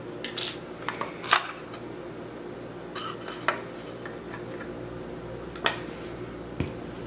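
Scattered light clinks and taps of a metal spoon against a spice container and a stainless steel mixing bowl as turmeric is measured out and added to the mince, over a steady low hum.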